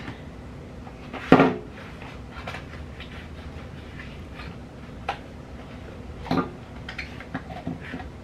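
A small cardboard product box being handled and opened with bare feet: scattered taps, scrapes and flap clicks, with a sharp knock about a second in and more knocks around five and six seconds.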